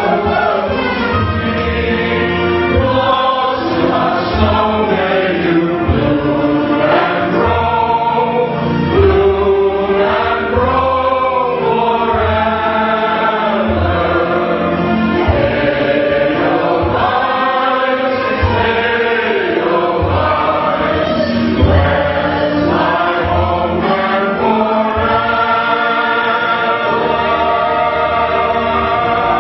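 A mixed choir singing in several parts. Near the end it settles onto a long held chord.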